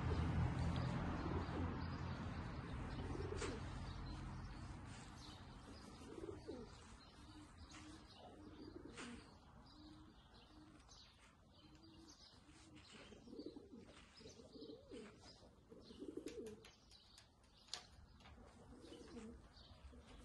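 Domestic pigeons cooing in short, repeated low calls, with small birds chirping faintly. A low rumble fades away over the first five seconds.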